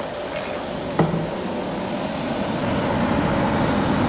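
Steady fan noise, growing a little louder in the second half, with a single sharp click about a second in.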